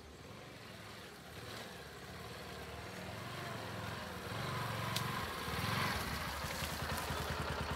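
A motorcycle engine running as it approaches, its low, steady pulse growing gradually louder.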